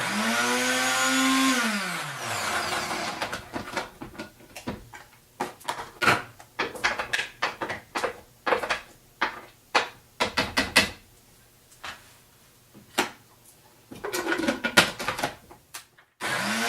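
Countertop blender motor pulsed on briefly, holding a steady pitch for about two seconds, then winding down with a falling pitch as it churns a thick carrot and pine nut paste. A string of separate knocks and clatters follows, then a second short pulse of the motor near the end that winds down the same way.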